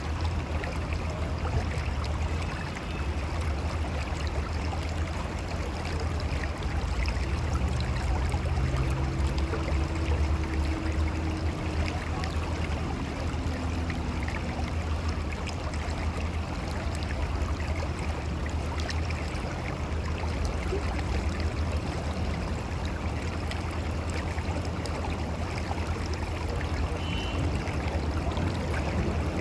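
Mountain river flowing over rocks: a steady rush of water with a deep low rumble underneath.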